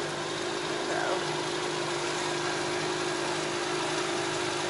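Boat motor running steadily, a constant hum under a steady hiss.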